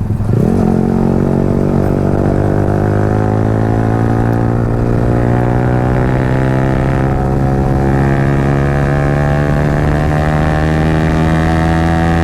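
Yamaha R15's 155 cc single-cylinder engine through a loud Akrapovic aftermarket exhaust, pulling hard under acceleration with its pitch rising slowly and steadily after a short dip and jump near the start.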